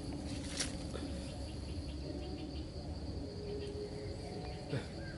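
Steady high insect drone over low outdoor rumble. A few short sharp clicks and rustles, the clearest about half a second in, come from hands working nylon string and sticks.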